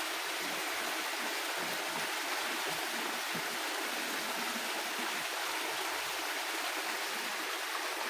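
Small rocky hill stream running steadily over stones, a continuous even rush of water.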